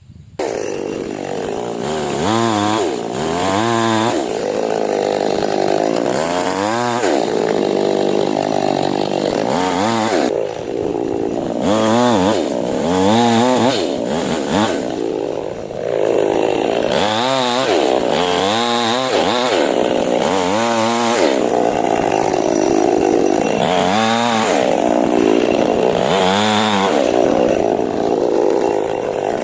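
Two-stroke chainsaw cutting oil palm fronds, its engine revved up and dropped back again and again, about every one to two seconds.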